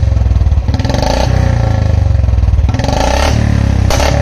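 Royal Enfield Bullet 350 single-cylinder engine idling at a very low rpm through a free-flow exhaust pipe with no catalytic-converter mesh, giving an evenly pulsing thump. The note swells briefly twice.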